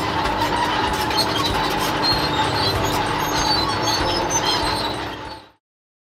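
Cartoon sound effect of an excavator running: a steady engine hum with rattling and clanking, which fades out and stops about five and a half seconds in.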